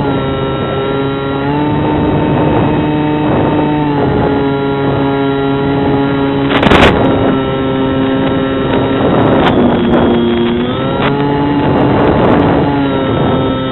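Bixler 2 RC foam plane's electric pusher motor and propeller heard from on board, a steady motor tone whose pitch shifts in steps a few times with throttle changes. A short rush of wind noise comes about six and a half seconds in.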